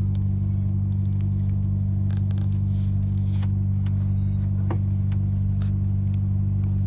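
Truck diesel engine idling steadily, a deep even hum heard from inside the cab. A few faint clicks from a plastic crimp connector and wire being handled.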